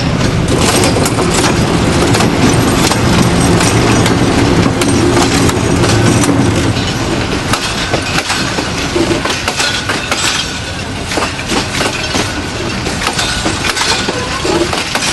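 A train passing close by on the track. For the first half there is a steady engine drone. After that the coaches roll past with a clatter of wheels clicking over the rail joints.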